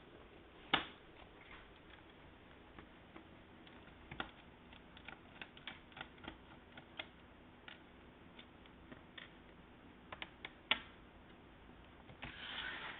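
Scattered small clicks and ticks of a precision Phillips screwdriver unscrewing screws from the plastic underside of a Dell Inspiron 1501 laptop. A louder knock comes about a second in and another near the end, followed by a brief rustle.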